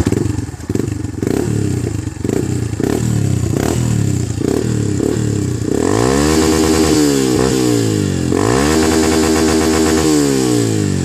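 Yamaha Fazer 150's single-cylinder four-stroke engine breathing through a Roncar 'Boca 8' aluminium aftermarket exhaust, revved with the bike standing: several quick throttle blips, then about halfway in two long revs held high with a dip between them, falling back near the end. A full-bodied exhaust note.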